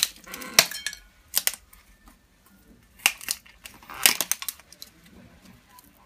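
A fire-charred coconut being split open: a series of sharp knocks and cracks as it is struck, with clusters of hits about a second in, around three seconds and around four seconds.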